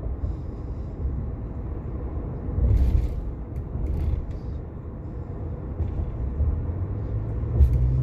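Turbocharged EcoBoost V6 of a Ford F-150 running with a low drone, with brief louder surges about three seconds in and near the end. This is the engine's recurring hiccup, a momentary stumble that the owner wonders may come from the turbo's blow-off valve.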